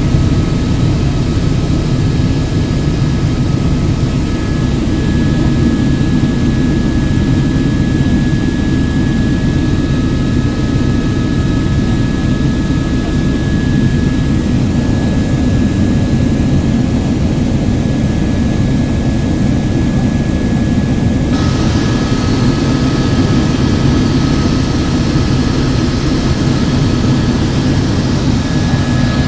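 Sightseeing helicopter in flight, a steady loud drone of engine and rotor with a thin high turbine whine over it. About two-thirds of the way through, the high hiss changes abruptly.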